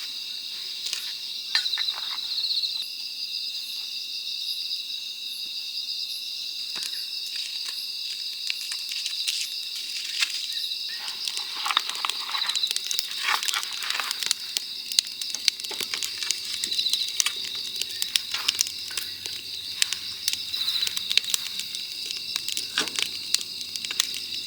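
Wood campfire crackling and popping, the pops coming thicker from about halfway through as the fire takes hold, over a steady high chorus of crickets.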